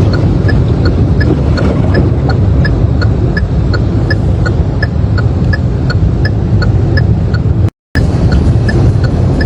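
Loud, steady rush of floodwater, with an even ticking beat of about two ticks a second over it. The sound cuts out for a moment near the end.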